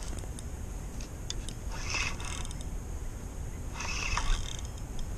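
Fishing reel being cranked in two short bursts, its gears whirring, as a fish is reeled in, over a steady low rumble.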